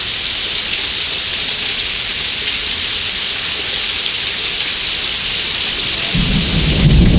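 Heavy rain pouring steadily, a dense hiss. About six seconds in, a deep rumble of thunder sets in.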